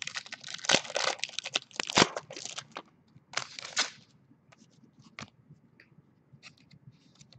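Foil trading-card pack wrapper being torn open and crinkled in the hands, a dense crackling for about four seconds, then a few sparse light clicks as the cards are handled.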